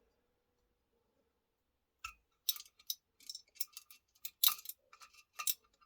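Silent at first, then from about two seconds in an irregular run of light clicks and taps as small parts and a tool are handled during assembly of a model excavator kit.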